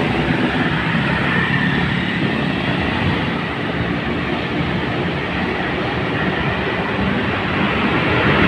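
Steady road and wind noise from a vehicle on the move.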